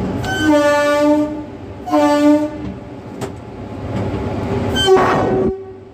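Air horn of a WCAG-1 electric locomotive sounded from inside the cab: a steady-pitched blast of about a second, a shorter second blast, then a brief hissier burst near the end.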